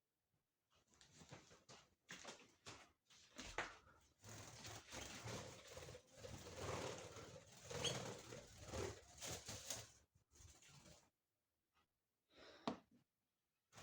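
Pet budgerigar and canaries giving soft chattering calls in a cage, in a run of several seconds with a short burst near the end.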